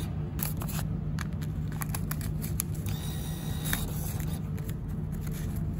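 Refrigerated vending machine humming steadily, with scattered clicks and paper rustling from its note acceptor taking in a $5 note and pushing it back out, rejecting it.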